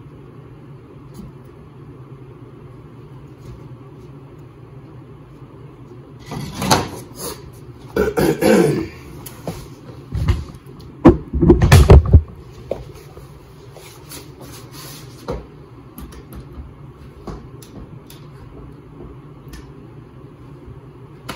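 Camera being handled and moved: fabric rubbing over the microphone and heavy handling bumps, the loudest of them about eleven to twelve seconds in. A steady low hum under it throughout, with a few light clicks afterwards.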